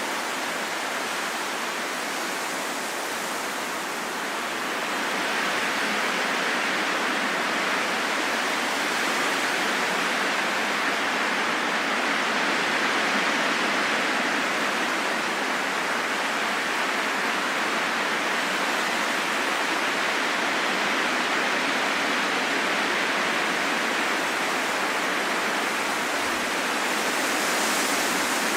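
Wind blowing as a steady rushing noise, growing a little louder about five seconds in and then swelling and easing gently.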